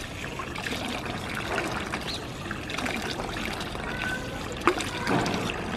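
Water running steadily from a drinking fountain's spout.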